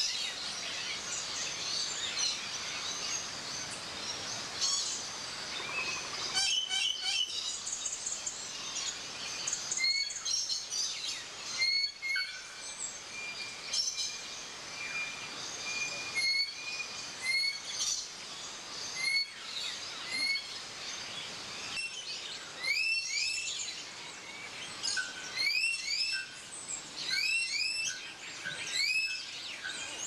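A mixed chorus of birds chirping and calling over a background hiss. In the second half one bird repeats a short rising call, often twice in quick succession, about once a second.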